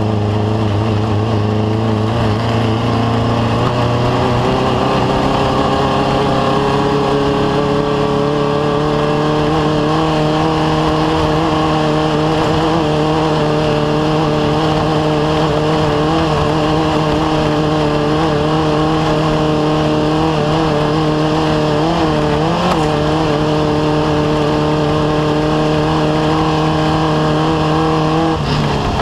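Off-road race vehicle's engine held at sustained high revs. Its pitch climbs gradually over the first several seconds, then holds steady with brief wobbles about 16 and 22 seconds in. A steady rushing noise runs underneath.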